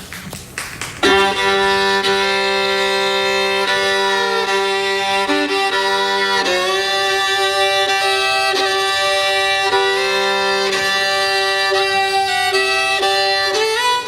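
Violin playing slow, long bowed notes over a held low drone, opening a song. It starts about a second in, after a brief spatter of clapping.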